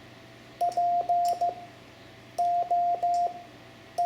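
Morse code (CW) tone keyed at a steady pitch, sending the word 'poke': the letter P (dit dah dah dit) about half a second in, then O (dah dah dah), with K beginning at the very end.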